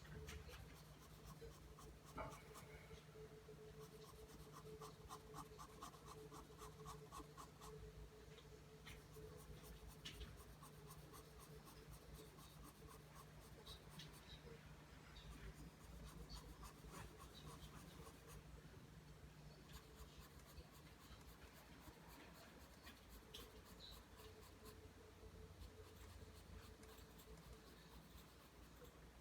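Pencil scratching on paper in a long run of quick, repeated line strokes, faint, over a low steady hum.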